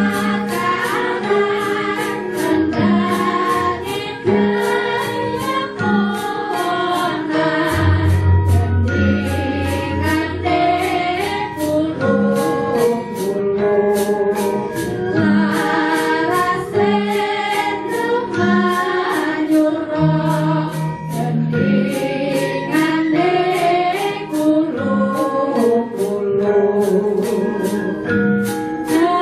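Several female singers (sindhen) singing a melody together in unison over gamelan accompaniment, with sharp drum or clapper strokes beating regularly throughout. A long low tone sounds about eight seconds in, and another near twenty seconds.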